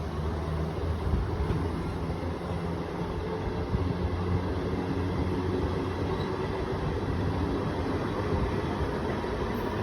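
MEMU electric multiple-unit train running on the rails as it pulls away and gathers speed: a steady rumble of wheels and running gear with a low hum.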